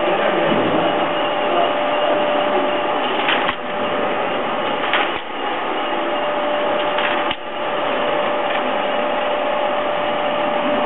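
An old printing press running: a steady mechanical clatter with a constant hum through it and a few louder knocks spaced a couple of seconds apart.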